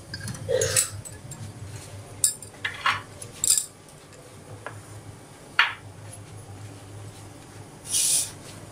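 Scattered clinks and knocks of steel kitchenware, a lid on the kadai and a spoon against small bowls, about half a dozen strikes, with a brief scrape near the end. A low steady hum runs underneath.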